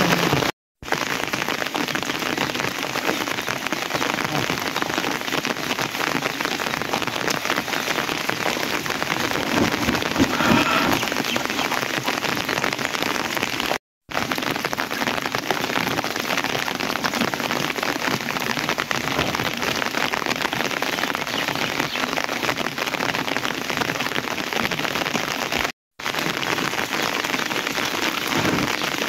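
Steady, heavy rain falling, a dense even hiss that cuts out for a moment three times.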